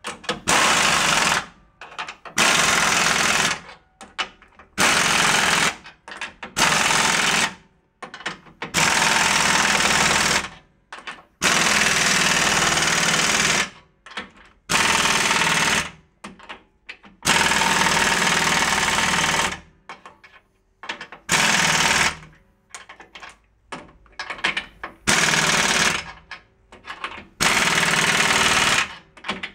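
Pneumatic impact wrench hammering the U-bolt nuts of a leaf spring tight to spec. It runs in repeated bursts of one to two seconds with short pauses between them.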